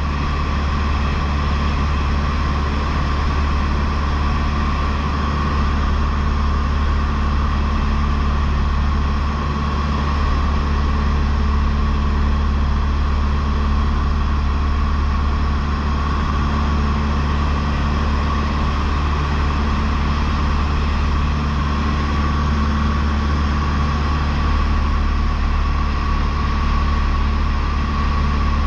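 Cessna 152's Lycoming O-235 four-cylinder engine and propeller running steadily in flight: a constant, loud drone that holds the same pitch throughout.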